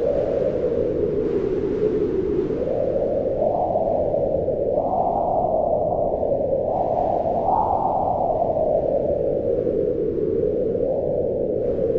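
Mountain wind howling in a snowstorm: a steady, loud rush whose pitch slowly swells and sinks, rising highest about halfway through and easing off near the end.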